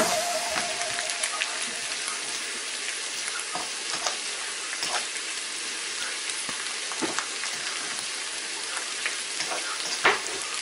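Ground beef and vegetables sizzling steadily in a frying pan, with scattered clicks and knocks from a utensil stirring the pan.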